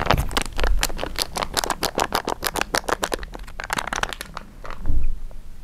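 Food packaging crinkling and crackling as it is handled, a rapid run of sharp crackles for about three seconds that then thins out, with a dull thump near the end.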